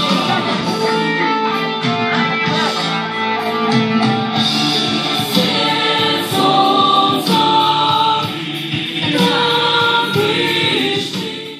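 A group of voices singing a song together, with instrumental accompaniment; the sound cuts off suddenly at the end.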